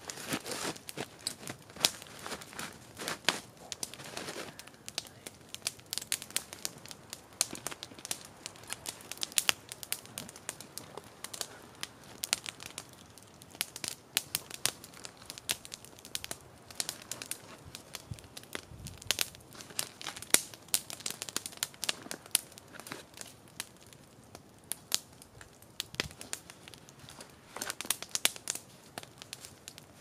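A paper bag crinkling and rustling as it is handled, over the irregular crackle and snap of a wood campfire.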